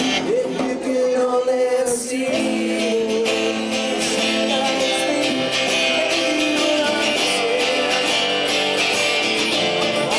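Live acoustic music: a man singing into a microphone over strummed acoustic guitar.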